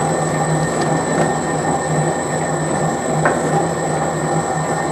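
Commercial stand mixer running, its motor and gearing giving a steady hum that swells and eases at a slow regular pace as the flat beater turns the paste ingredients in the stainless-steel bowl.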